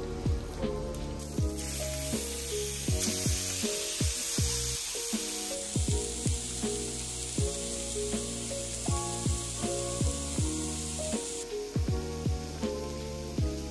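Food sizzling in a hot frying pan, starting about a second and a half in and stopping near the end, over background music with a steady beat.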